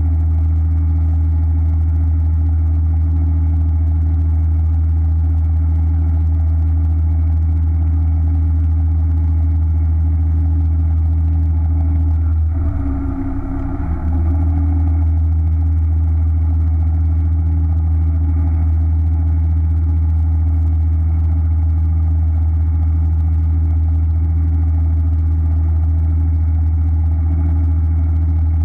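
A fishing boat's engine idling with a steady, deep hum. It dips briefly in level about halfway through.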